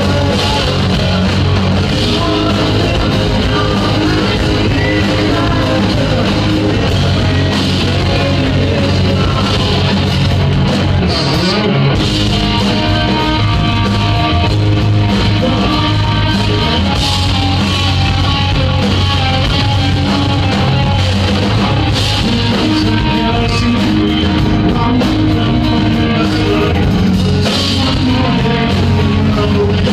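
Live rock band playing loud: electric guitar, bass guitar and drums with a male lead singer.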